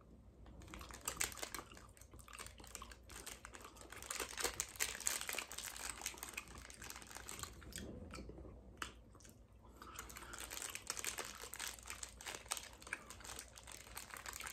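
Close-up eating sounds: a gummy fruit snack being chewed with wet mouth clicks, mixed with the crinkle of its plastic pouch being handled. The clicking thins out for a couple of seconds around the middle.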